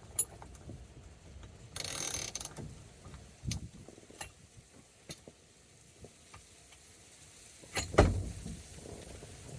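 Steering wheel puller being worked off a 1982 Chevy C10 steering shaft with a ratchet: scattered mechanical clicks, a short rasping stretch about two seconds in, and a sharp knock near the end.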